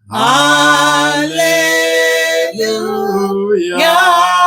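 Singing of a worship song: long held notes that slide between pitches, starting right after a brief break.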